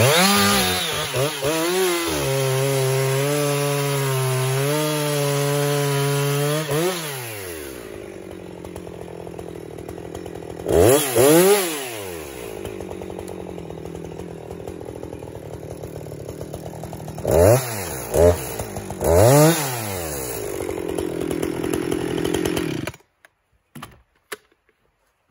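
Ported two-stroke chainsaw revving up and held at steady full throttle for about five seconds while cutting through a log, then dropping to idle. It is blipped on the throttle four times and then switched off near the end.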